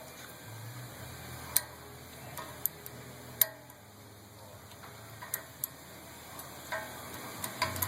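Scattered sharp metal clicks and ticks as a cotter pin is worked out of the castle nut on a front axle.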